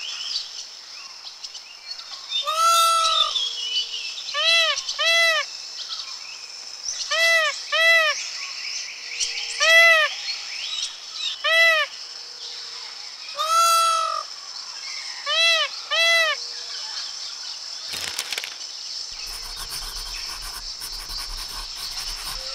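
Male Indian peafowl (peacock) calling: about ten loud, arched, nasal calls, several given in quick pairs, over a steady high hiss. About eighteen seconds in the calls stop and a faint crackling background takes over.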